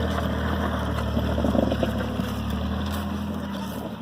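Off-road vehicle's engine running at a steady low speed, an even drone that grows slightly quieter near the end.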